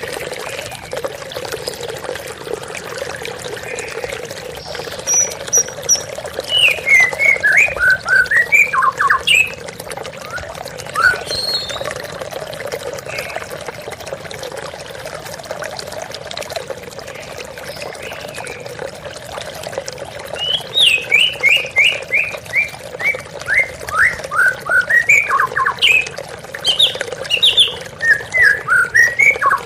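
Waterfall water rushing steadily, with a murai (white-rumped shama) singing over it in two spells of quick, mostly falling notes, one about six seconds in and a longer one from about twenty seconds in.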